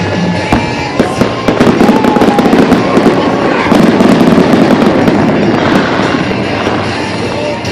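Aerial fireworks going off in quick succession: a dense run of bangs and crackling bursts throughout.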